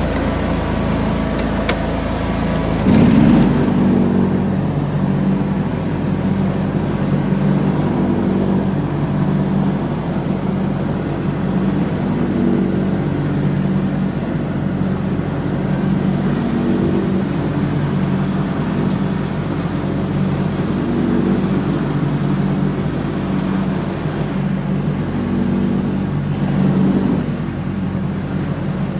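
John Deere riding lawn mower's engine running steadily under mowing load, its pitch and level swelling and easing every couple of seconds, with a brief louder burst about three seconds in.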